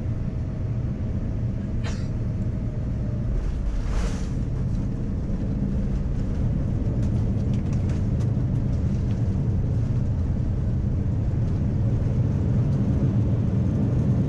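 Steady low rumble in the cabin of a Boeing 787-9 airliner on the ground after landing, with a few faint clicks and a brief hiss about four seconds in.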